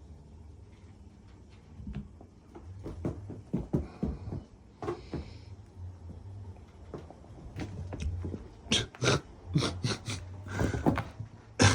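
House cats scuffling and play-fighting: a string of thumps, knocks and scratchy scuffles that grows busier and louder over the last few seconds.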